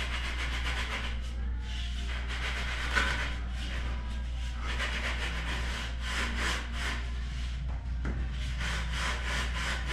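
Metal straightedge sawed back and forth across damp sand-cement mortar, a rhythmic scraping at about three strokes a second, screeding the shower floor level.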